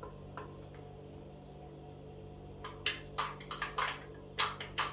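A quick run of about eight sharp taps, starting a little past halfway, like a knife cutting through papaya onto a cutting board. A steady low hum sits underneath.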